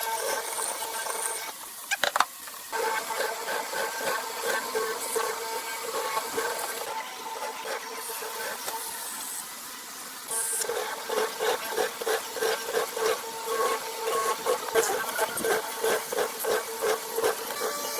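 Woodworking tool working wood: a steady humming tone with repeated strokes, a few a second, that grow stronger from about ten seconds in. A brief knock comes about two seconds in.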